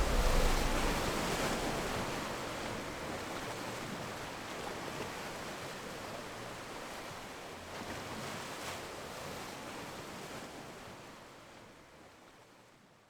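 Hiss-like noise wash, like surf, closing out an electronic music mix, with the deep bass dying away in the first second and the whole sound fading steadily to silence by the end.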